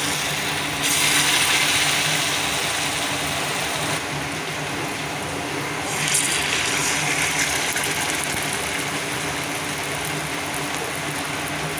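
Batter-coated bitter gourd leaf fritters deep-frying in hot oil in a kadai: a steady sizzle that swells louder about a second in and again about six seconds in.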